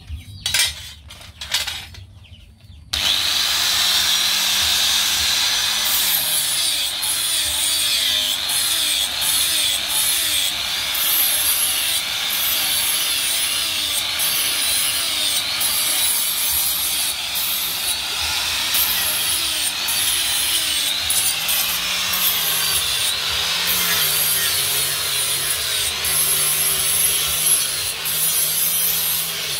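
Handheld electric angle grinder starting up about three seconds in, then grinding the steel edge of a cleaver to sharpen it, its pitch wavering as the disc bites into the blade. A few short knocks come before it starts.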